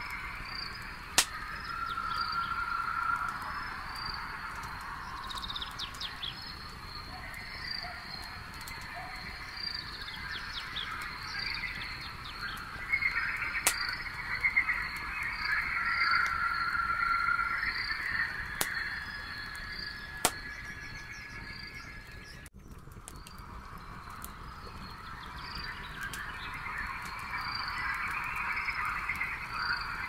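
Night chorus of insects chirping in a steady pulse over a trilling frog chorus, with a few sharp pops from a crackling wood campfire. About two-thirds of the way in, the chorus drops away for a moment and then swells back.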